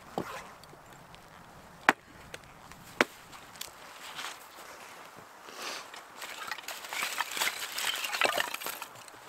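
Axe chopping wood: three sharp strikes in the first three seconds, the second the loudest. From about halfway in, rustling and light clattering as split sticks are gathered up from the snow.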